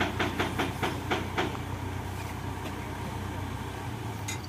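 Hydra mobile crane's diesel engine idling steadily. A run of light clicks, about four a second, comes in the first second and a half, and one more click near the end.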